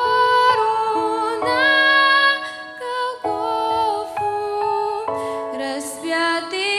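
Slow, gentle live music: a melody of held notes stepping from one pitch to the next over soft accompaniment, without a bass line.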